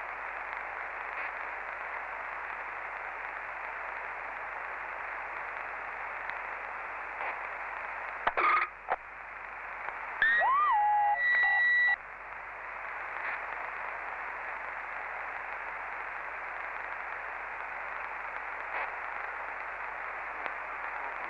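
CB radio receiver on 27.555 MHz giving a steady hiss of band static between transmissions. About 8 seconds in a station briefly keys up. From about 10 to 12 seconds a louder signal comes through, carrying a steady high beep and whistles that slide in pitch.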